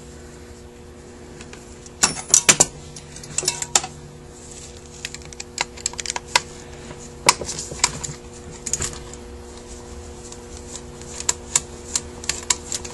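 Light, irregular metal clicks and taps as a tool and small parts are handled against a cast Rochester Quadrajet carburetor body, with a quick cluster about two seconds in and scattered ticks after. A steady low hum runs underneath.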